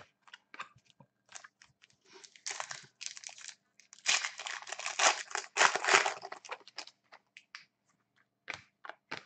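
Foil trading-card pack being torn open and crinkled, a run of crinkling bursts that is loudest from about four to six and a half seconds in. Light clicks of cards being handled come before and after.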